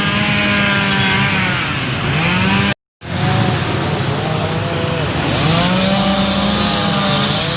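Two-stroke chainsaw running at high revs, its pitch repeatedly sagging under load and climbing back, as when cutting through a wind-fallen tree. The sound breaks off for a moment about three seconds in.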